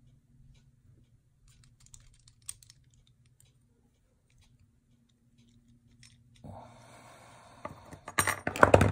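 Small metal pliers working the crimped pin of a die-cast toy tractor shovel. A few faint clicks come first. From about six and a half seconds in there is a rustle of handling, then near the end a quick run of louder clicks and clatter of metal parts as the pin is pulled and the bucket comes off.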